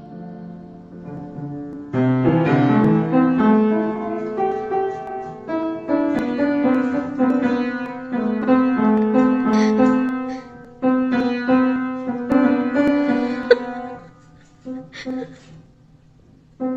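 Piano notes: a busy run of notes and chords starting about two seconds in, thinning to a few scattered, quieter notes near the end.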